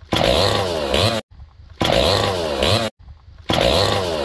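Two-stroke chainsaw engine revving up and back down in three bursts of about a second each, each one cut off abruptly.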